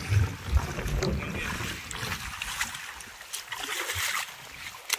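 Water splashing as a person wades through shallow water to the bank, heaviest in the first two seconds and quieter after.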